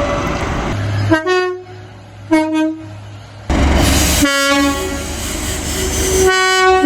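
Train air horn: two short blasts about a second apart, then the loud rumble of a train and a long horn blast that holds to the end.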